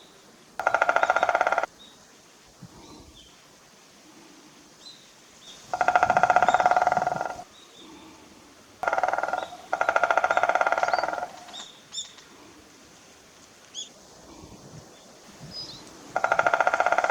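Woodpecker drumming on wood: five rapid rolls of about a second to a second and a half each, the strikes too fast to count and ringing with the hollow tone of the wood. Faint high chirps of small birds come between the rolls.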